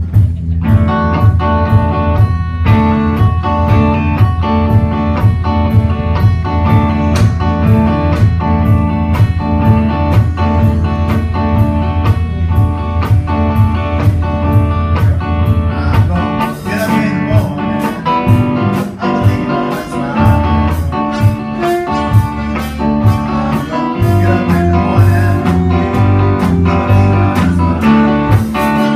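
Live blues band playing an instrumental stretch, with electric guitar over a drum kit keeping a steady, even beat.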